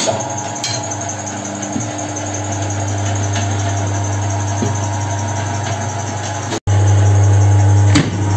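Tyre-changing machine's electric motor turning the turntable with a steady low hum while a tyre is worked onto a steel wheel rim. It breaks off abruptly once and comes back louder, with a few short metallic knocks.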